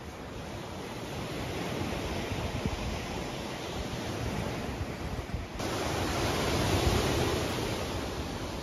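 Wind on the microphone over the wash of lake waves breaking on the shore. About halfway through the sound changes abruptly to a brighter, louder wash of surf and wind.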